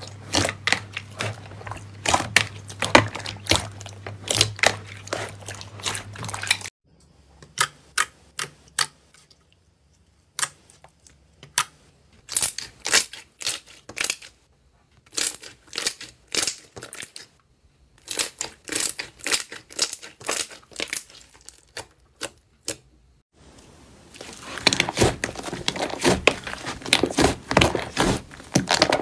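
Hands squeezing and pressing slime, giving sharp pops and crackles. They come in quick runs, thin out with short silent gaps in the middle, and thicken into a dense, steady crackle near the end.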